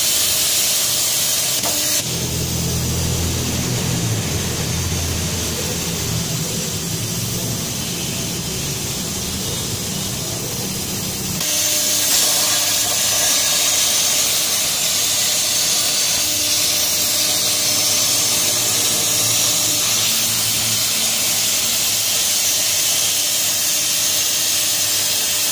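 CNC plasma torch arc cutting steel plate, a loud steady hiss. For a stretch of about ten seconds in the first half the hiss eases and a low hum comes in, then the full hiss returns.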